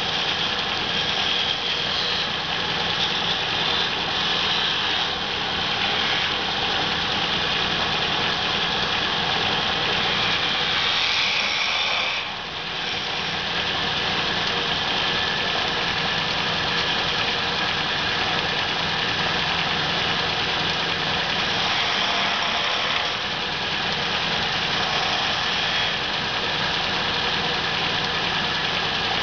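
Wood lathe running as a hand-held turning chisel cuts a spinning wooden spindle: a steady scraping hiss of the tool shaving the wood over the lathe's motor. The cutting lets up briefly about twelve seconds in and again around twenty-three seconds.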